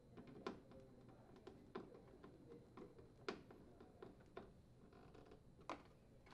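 Faint, irregular clicks and taps of a Phillips screwdriver turning a mounting screw into a refrigerator door's plastic mullion flipper assembly, with light handling of the plastic door parts.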